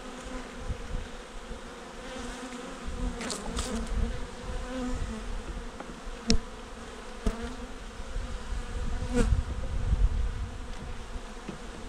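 Honeybee colony buzzing steadily from an opened hive, with a few sharp wooden clicks and knocks as a hive tool and the frames are moved, four or five times.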